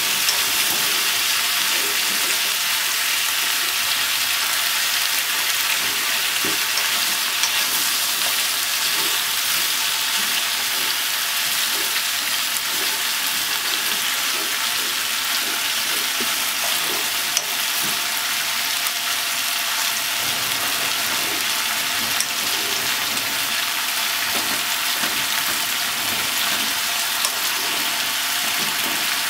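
Sliced pork, potatoes, onion and carrot sizzling in hot oil in a pot while being stirred with chopsticks: a steady frying hiss with small clicks and pops now and then.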